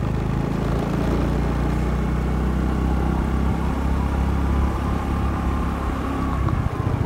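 Small motorbike engine running steadily at road speed, heard from the rider's seat as a continuous low rumble.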